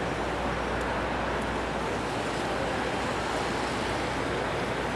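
Steady city street ambience in the rain: traffic noise blended with a constant wash of hiss, with no distinct events standing out.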